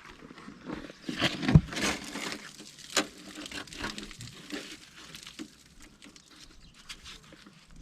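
Irregular small knocks, clicks and rustling of objects being handled, with a louder knock about one and a half seconds in and a sharp click at about three seconds.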